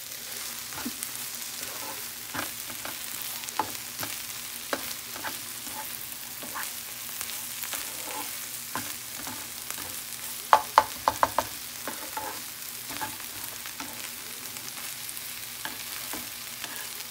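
Small shrimp and onion sizzling in a nonstick frying pan while a plastic slotted spatula stirs and scrapes through them, with a quick run of louder clicks about ten seconds in.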